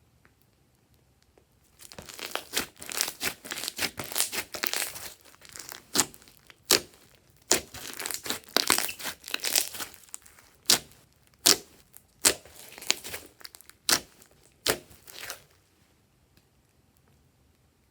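Hands squishing and pressing glossy slime: sticky crackling and clicking starts about two seconds in, thins to single sharp pops about once a second, and stops a couple of seconds before the end.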